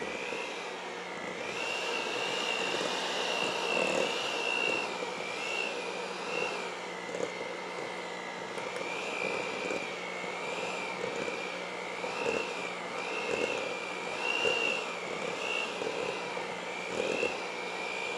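Small Hamilton Beach electric hand mixer running steadily, beaters working through stiff shortbread dough in a stainless steel bowl. Its motor whine wavers up and down in pitch as the dough loads the beaters, with scattered knocks along the way.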